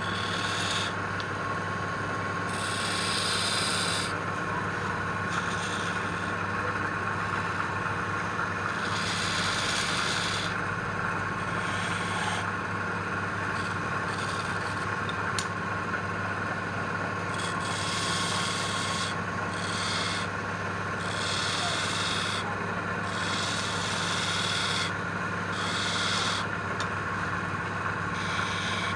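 Wood being worked with an abrasive tool, in repeated scratchy strokes about a second long, over the steady hum of an electric motor.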